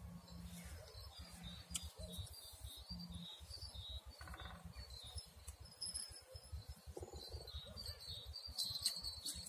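Small birds chirping and calling repeatedly in the riverside trees, over a low, uneven rumble.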